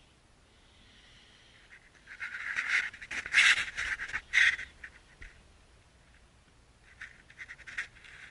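A person crawling through a house's crawl space: scuffing and rustling on the dirt, with heavy breaths, in three loud bursts about two to five seconds in, then fainter scuffs near the end.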